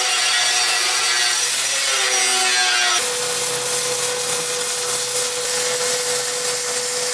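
Angle grinder grinding down a weld lip on a steel smoker end cap, a whining grind with several steady tones that sag slightly near the end of the grinding. About three seconds in it cuts abruptly to wire-feed welding on the steel, a steady hiss with one constant hum.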